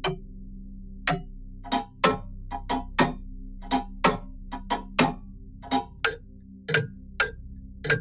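Several mechanical clocks ticking at once, out of step with each other, so the sharp ticks fall at uneven intervals, about two to three a second. A faint steady low hum runs underneath.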